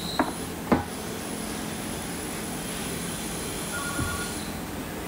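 Two sharp clicks about a second in and a duller knock near four seconds, as hand tools and small pump parts are handled on a workbench, over a steady mechanical background hum.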